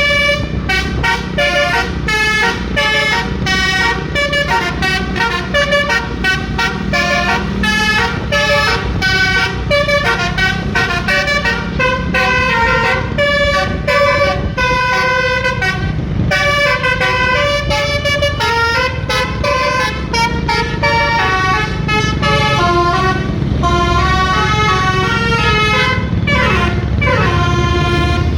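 Basuri-type telolet horn, a multi-tone air horn of the kind fitted to Indonesian buses and trucks, playing a fast melody of short honked notes, with a downward slide near the end. A steady low rumble runs underneath.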